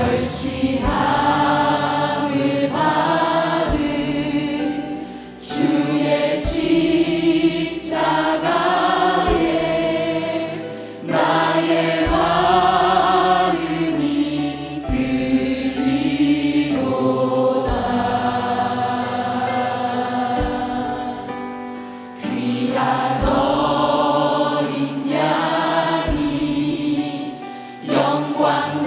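Church choir and congregation singing a hymn together in long, sustained phrases, with instrumental accompaniment.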